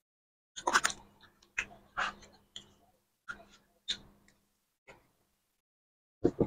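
A person eating mutton curry and rice, heard as a run of short, separate mouth and chewing noises about every half second to second. The noises fall silent for about a second before a louder one near the end.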